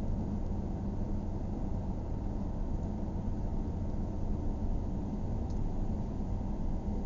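Steady low road and engine noise of a car driving at moderate speed, heard from inside the cabin.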